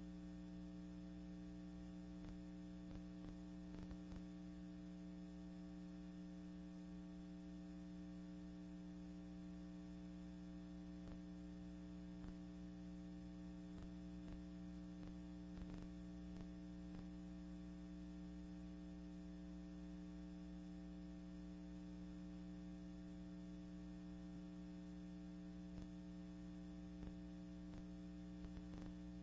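Faint, steady electrical hum with light hiss and a few faint scattered clicks: the noise floor of a silent archival film transfer with no soundtrack of its own.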